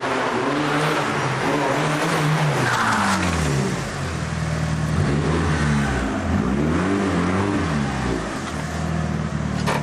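Engine of a rally-prepared Mitsubishi Lancer Evolution being revved up and down over and over, its pitch rising and falling in repeated swells, with a sharp click near the end.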